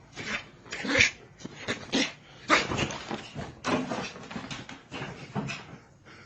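A pet making a series of short calls, about one every half second to a second, some louder than others.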